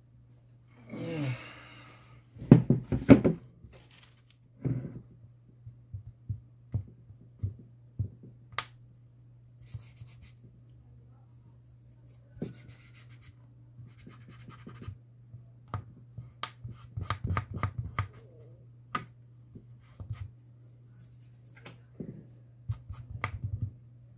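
Hands working on a loudspeaker cone with small tools: scratching and scraping, with irregular sharp clicks and light knocks, the loudest a quick cluster of clicks about three seconds in. A steady low hum runs underneath.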